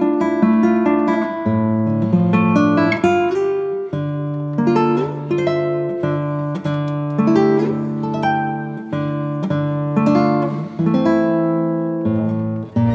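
Background music: a plucked-string instrumental, notes picked one after another in a gentle melody.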